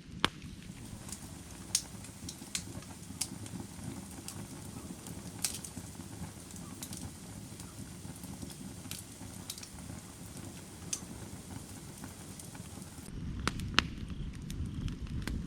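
Firewood burning: a steady low rush of flame with sharp, irregular crackles and pops, a few of them loud. About 13 seconds in, the low rush grows louder.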